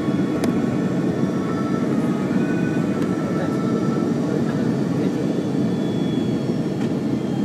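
Steady rushing cabin noise of an Airbus A330-300 during landing: engine and airflow noise heard from a window seat inside the cabin. There is a faint click about half a second in.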